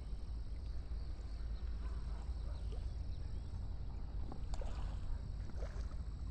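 A hooked tilapia on a telescopic pole splashing and thrashing at the pond surface a few times near the end, over a steady low rumble.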